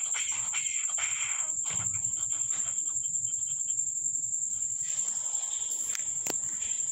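A cricket trilling steadily at a high pitch, with faint scattered clicks and rustles and one sharp click about six seconds in.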